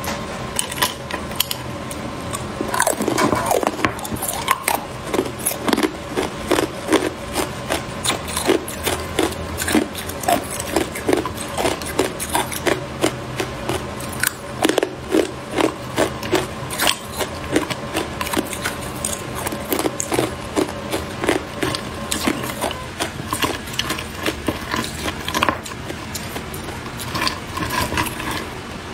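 Hard clear ice cubes being bitten and chewed: a long run of crisp crunches, several a second, pausing briefly now and then.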